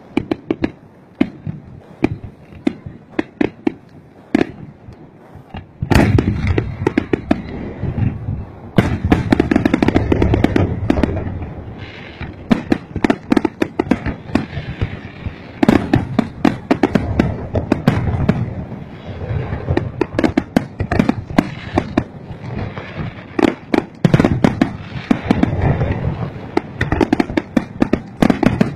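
Aerial fireworks display: a long run of sharp bangs, sparse and lighter at first, then a much denser and louder barrage from about six seconds in.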